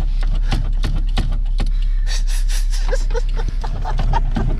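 A Toyota MR2 AW11's 4A-GE engine idling steadily while the handbrake lever is yanked up and down over and over, giving a run of sharp ratchet clicks and knocks. It is being worked to stretch the handbrake cable because a rear brake is dragging. A short laugh or exclamation comes in partway through.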